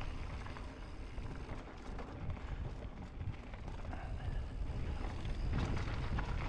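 Mountain bike riding down a dirt trail: wind rumbling on the microphone over tyre noise, with scattered knocks and rattles from the bike over bumps, a couple of them sharper near the end.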